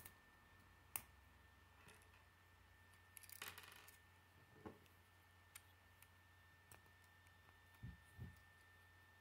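Faint, scattered clicks of plastic K'nex rods and connectors being handled and snapped together, with a short rattle of pieces about three and a half seconds in and two soft knocks near the end.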